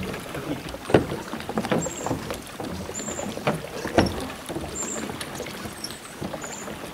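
Water lapping and splashing around a pedal-driven kayak as its twin oscillating hydrofoils swish back and forth, with two sharper knocks, one about a second in and one about four seconds in, and short high chirps repeating every second or so.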